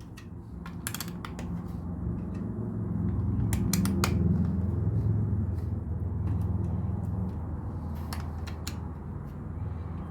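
Plastic LEGO pieces clicking and tapping as they are handled and pressed into place. A low rumble swells in the middle and fades again.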